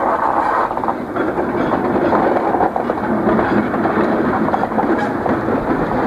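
Diesel switcher locomotive in Chicago & North Western colours running past close by: steady engine noise mixed with wheel clatter on the rails.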